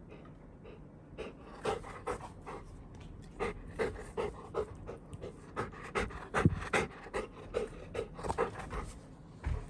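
Golden retriever panting in quick, even breaths, about two to three a second, with a low thump about six and a half seconds in.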